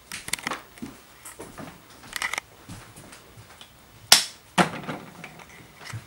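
Irregular sharp clicks and knocks in a small room. The loudest is a sharp crack about four seconds in, followed half a second later by a lower thud.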